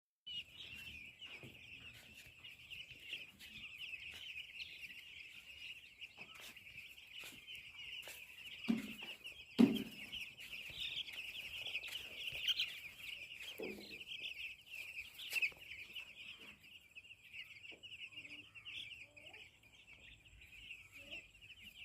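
A flock of day-old broiler chicks peeping continuously, many high-pitched calls overlapping into a dense chorus. A couple of short dull knocks stand out a little before halfway through.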